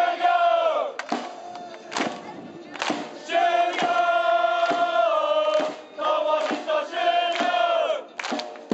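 Crowd of football supporters singing a chant together in long held notes, with sharp hand claps roughly once a second between the lines.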